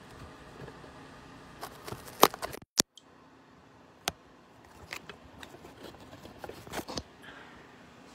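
Handling noise from a phone camera being picked up and carried: scattered taps, clicks and knocks of fingers and the phone against things, with the sound cutting out completely for a moment a little under three seconds in.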